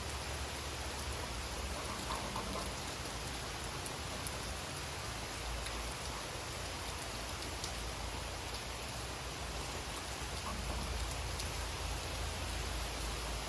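Steady summer rain falling in a forest, an even hiss with scattered single drops ticking through it.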